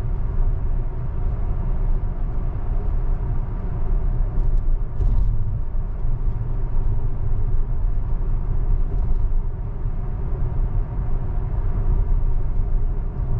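Steady low road and tyre rumble inside the cabin of a moving Tesla electric car.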